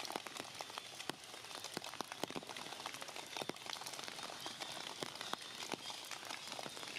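Heavy rain falling on forest foliage: a steady hiss with many single drops striking as sharp taps, irregularly spaced.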